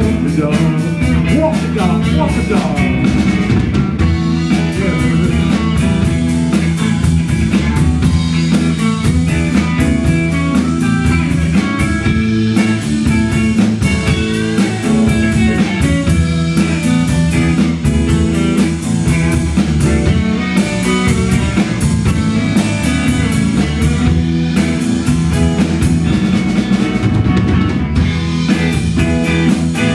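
Live rhythm-and-blues band playing: electric guitars, electric bass and drum kit, with a steady beat.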